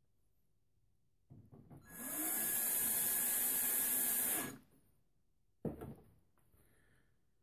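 Power drill spinning for about two and a half seconds, its motor winding up and back down as it drives screws into a TV's back cover. A single sharp click follows.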